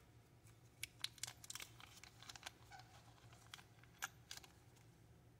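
Faint crinkling and crackling of a small clear plastic bag being pulled open and handled, with a few sharper crackles about a second in and again about four seconds in.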